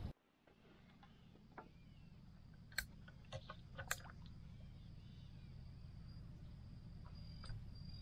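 Faint outdoor ambience on the water: a low steady rumble with a few sharp clicks about three to four seconds in, and a thin high steady tone near the end.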